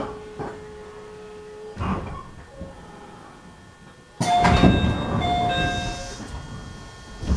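Sounds aboard a 211 series electric train at a station stop. A steady hum dies away within the first two seconds, with a few knocks. About four seconds in, a sudden loud burst of noise begins, carrying steady tones that shift pitch in steps.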